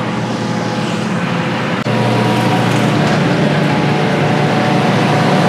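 Henny Penny Velocity pressure fryer running its quick-filter cycle, with the oil dropping to the drain pan and the filter pump humming steadily. A click about two seconds in, after which it runs louder.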